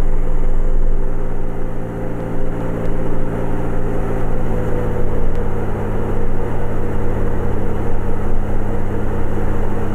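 Cabin noise of a 1946 North American Navion in flight: its piston engine and propeller drone steadily at reduced power on the landing approach.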